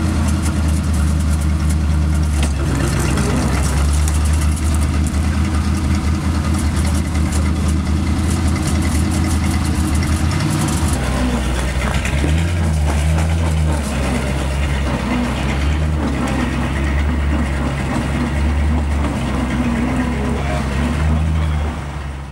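Ford flathead V8 engine of a Universal (Bren) Carrier running at low revs, with small changes in engine speed a few times.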